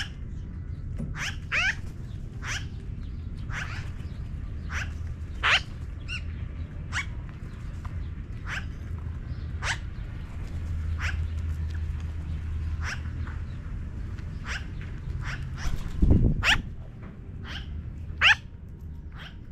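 Magpies calling: a long run of short, harsh calls about once a second, some in quick pairs. A steady low rumble sits underneath, and a loud low thump comes about sixteen seconds in.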